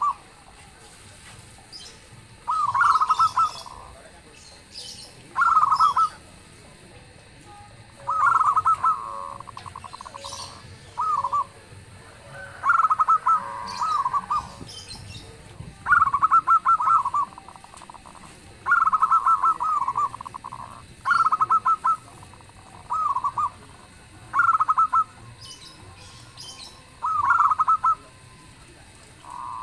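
Zebra dove (perkutut) cooing in loud repeated phrases of quick stuttering notes, one phrase every two to three seconds.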